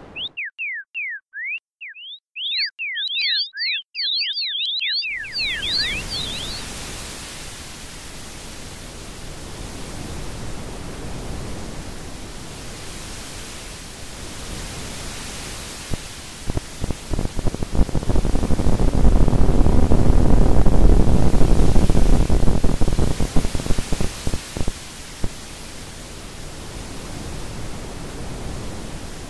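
Ambient soundtrack: quick chirping tones slide up and down over silence for about five seconds, then give way to a steady wash of noise. About midway the noise swells into a loud low rumble, then eases back.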